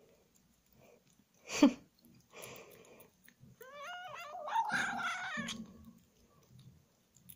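Siamese kitten vocalising while eating chocolate from a hand: a wavering cry that turns harsher and noisier for about two seconds, after a single sharp thump about a second and a half in.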